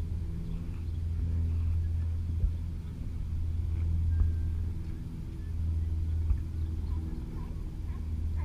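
Motorboat engine running steadily close by, a low hum with a few dull knocks.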